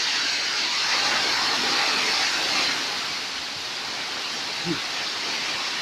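Heavy rainstorm: a steady rushing hiss of pouring rain, a little heavier for the first couple of seconds.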